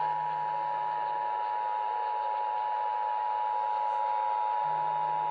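Emergency Alert System attention signal: the steady two-tone alert, heard over a radio broadcast with hiss underneath. It announces the required monthly test of the emergency alert system.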